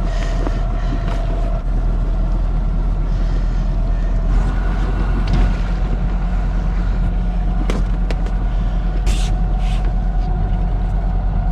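A sailboat's engine running steadily under way: a constant low hum with a faint steady whine, and a few knocks as fenders are handled on deck.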